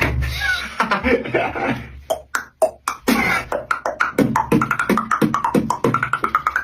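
Human beatboxing: mouth percussion mixed with pitched vocal sounds, a few sharp isolated clicks about two to three seconds in, then a fast rhythmic run of hits.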